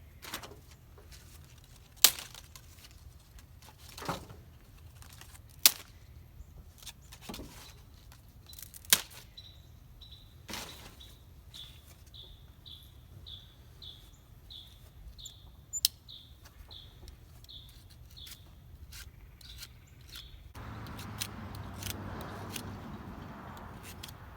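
Several sharp snaps a few seconds apart, like dead branch wood being broken. A bird chirps repeatedly through the middle, about one and a half short chirps a second. Near the end a steady rustling noise sets in.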